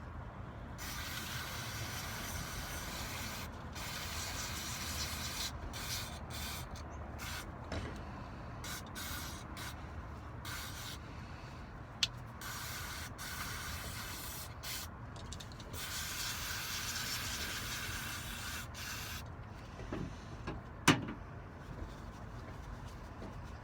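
Aerosol electronic cleaner spraying onto a mortise lock's parts, hissing in repeated short and longer bursts. Two sharp clicks, one about halfway and one near the end.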